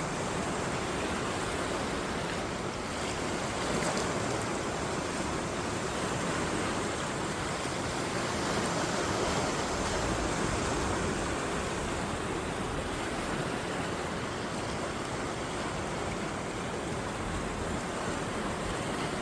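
Waves crashing on the shore: a steady rush of surf that swells a little about four seconds in and again about nine seconds in.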